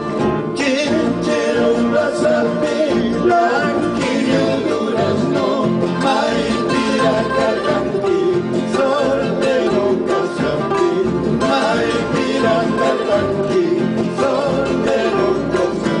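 Two or more classical guitars played live together, plucked notes in a continuous folk tune.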